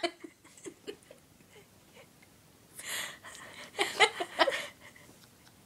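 Stifled, breathy laughter: faint giggles and breaths, a noisy breath about three seconds in, then a few short bursts of suppressed laughing about a second later.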